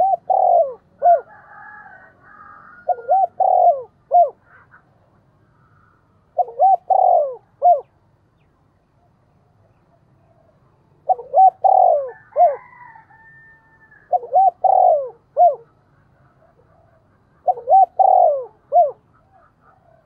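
Spotted dove cooing: six short phrases of three or four notes each, repeated every few seconds with a longer pause in the middle. A fainter, higher call from another bird sounds twice behind it.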